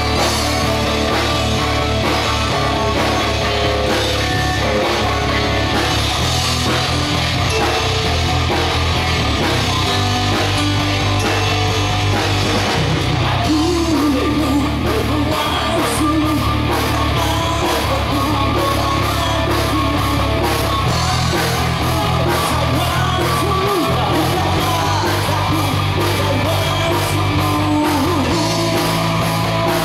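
Live rock band playing loud through a PA: electric guitars, bass, keyboard and drums with a steady beat, and a man singing at times.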